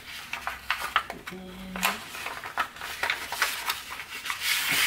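A sheet of Tant origami paper crinkling and rustling as it is creased and folded by hand, with many small, irregular crackles.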